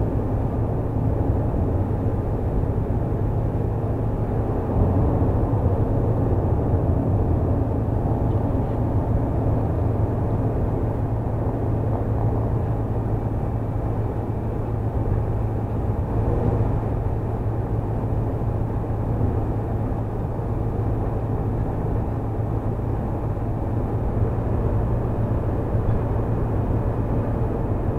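Motorhome driving at highway speed, heard from inside the cab: a steady low engine drone with tyre and road noise.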